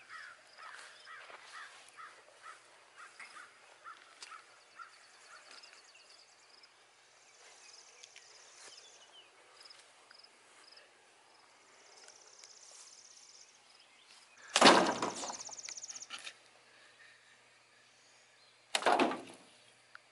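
Outdoor ambience with a bird calling in a quick series of short notes, then two loud whooshing swishes, one about three-quarters of the way in and one near the end.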